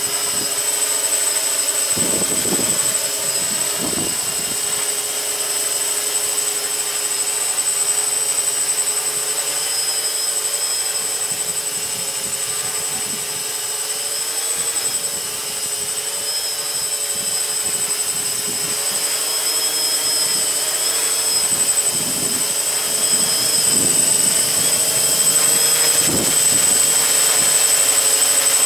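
Electric multicopter's brushless motors and propellers whirring steadily in a hover, the pitch shifting slightly as the flight controller corrects against the wind. Several low rumbles from strong wind gusts buffet the microphone.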